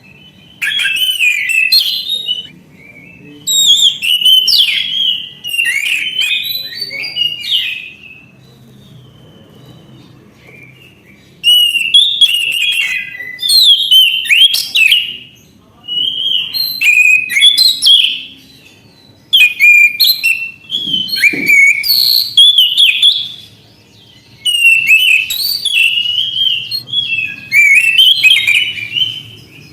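Orange-headed thrush singing: a string of about nine rapid, varied whistled phrases, each one to two seconds long, with short pauses between them.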